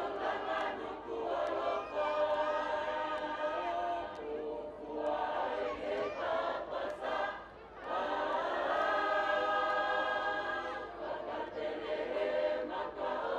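Choir of male and female voices singing a Tongan lakalaka in long held chords, with short breaks between phrases.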